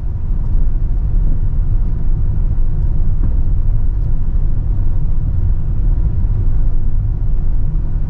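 Car driving along a rough road, heard from inside the cabin: a steady low rumble of tyre, road and engine noise.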